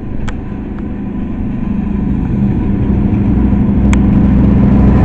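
Diesel locomotive drawing nearer, its low engine note growing steadily louder, with two brief clicks.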